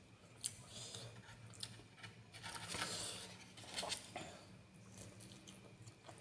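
Close-miked eating sounds: chewing with wet mouth clicks and smacks and a few short crunchy bites, loudest around the middle.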